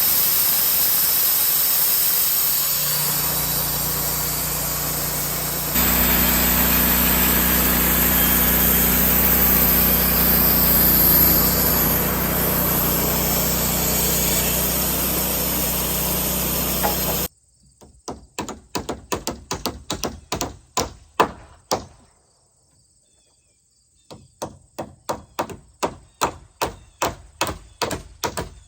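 A motor runs steadily with a low hum and hiss, then cuts off abruptly. Two runs of hammer blows on wood follow, about three strikes a second with a short pause between them, as when nailing framing lumber.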